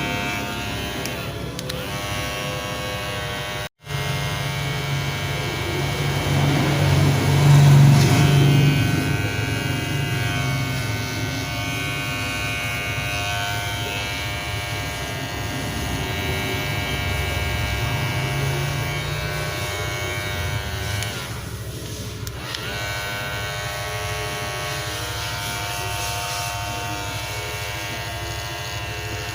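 Wahl Magic Clip cordless hair clipper running with a steady buzz. The sound drops out for a split second about four seconds in and swells louder a few seconds later.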